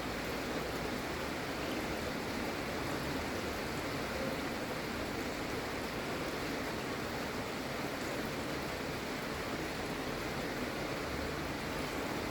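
Gentle, steady rain falling, an even hiss with no breaks or single drops standing out.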